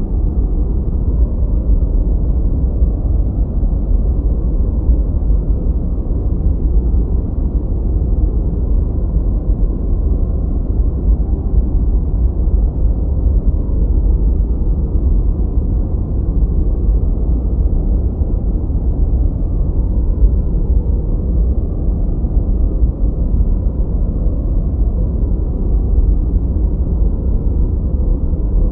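Steady generated 'gentle white noise' for sleep, softened so it is a deep, muffled hiss with nothing high-pitched in it and no changes.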